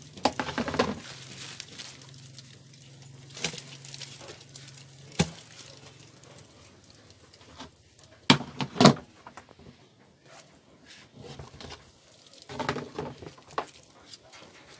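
Handling noise from plastic cricket pots and their lids being moved and knocked together: irregular sharp knocks and short rustles, the loudest two about eight and nine seconds in.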